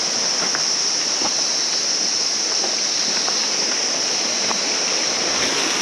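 Steady rush of a small cascading waterfall and its rocky stream, with a steady high-pitched hiss over it.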